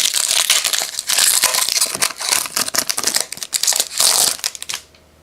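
Plastic-foil wrapper of a 2009 Topps Ticket to Stardom baseball card pack crinkling and tearing as it is opened by hand. The crackle comes in several loud spells and stops shortly before the end.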